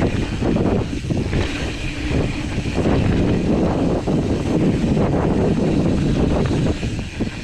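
Mountain bike riding fast down a dirt singletrack: knobby tyres rolling on dirt, with frequent short rattles and knocks from the bike over bumps and roots, and wind rushing over the microphone.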